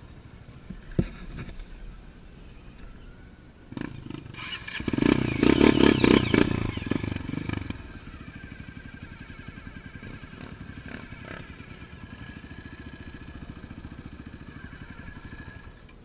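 Dirt bike engine idling, revved up once about four seconds in and settling back to a steady idle a few seconds later. A single sharp knock about a second in.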